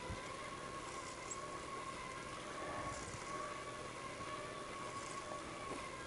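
Ride along a paved road: a steady thin whine, wavering slightly in pitch, over a quiet hiss of rolling and wind noise, with a couple of soft low bumps.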